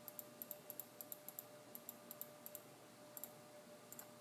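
Faint clicking of a computer mouse and keyboard: about twenty short clicks, many in quick pairs, over a faint steady hum.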